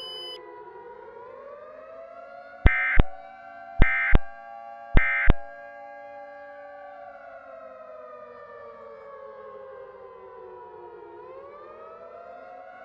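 Civil defense siren wailing, its pitch gliding slowly down and up. A few seconds in, three short, loud screeching data bursts about a second apart cut over it: the Emergency Alert System's end-of-message code, marking the end of the alert.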